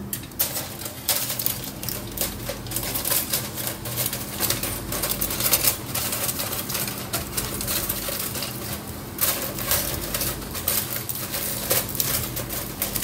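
Aluminium foil crinkling in irregular rapid crackles as it is stretched over a stainless steel bowl and crimped down around the rim by hand.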